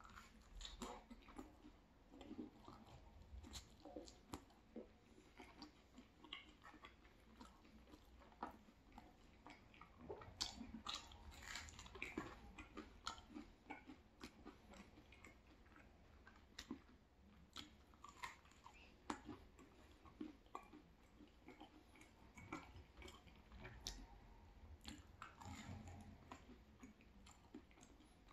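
Quiet, close-up chewing and biting of crispy thin-crust pizza, with many small crunches of the crust.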